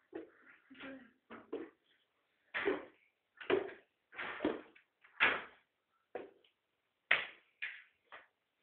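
A series of dull knocks and thuds, roughly one a second, with some louder than others.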